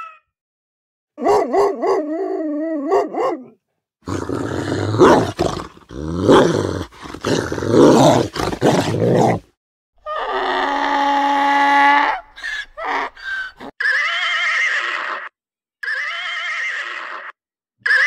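A run of animal calls. First a cat's wavering meow, then several seconds of a donkey's loud rasping braying, and near the end a horse whinnying several times.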